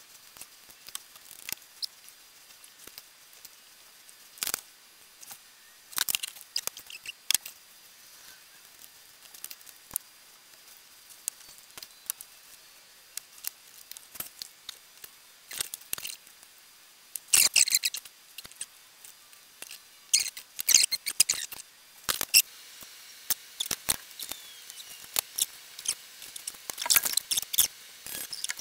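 Irregular small clicks, taps and rustles of hands handling small electronic parts, LED strip and hand tools on a workbench, busiest in the second half. A faint steady hum comes in about three-quarters of the way through.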